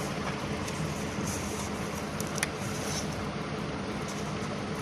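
Steady background noise with a low hum, and one faint click about two and a half seconds in.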